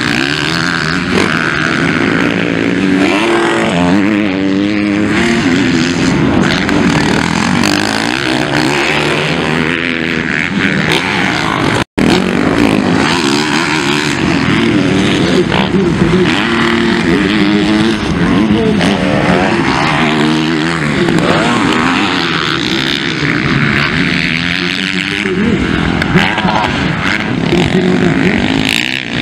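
Motocross bikes' engines revving hard and easing off as the bikes ride past on a dirt track, the pitch rising and falling again and again with throttle and gear changes. The sound cuts out for an instant about twelve seconds in.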